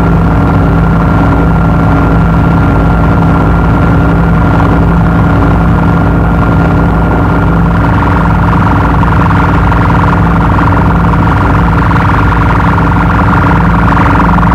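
Power electronics noise: a loud, steady droning wall of distorted hum and rumble, with a thin high whine that fades out about eight seconds in.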